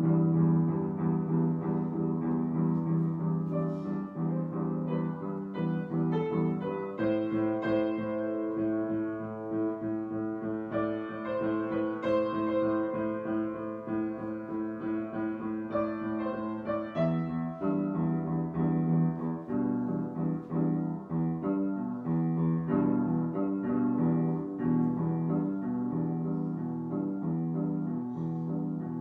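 Piano music, a slow piece of sustained notes and chords that shift every second or so.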